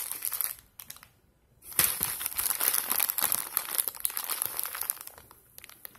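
Packaging crinkling as a shipping package is handled: a short burst, a brief pause about a second in, then a longer stretch of steady crinkling that dies away near the end.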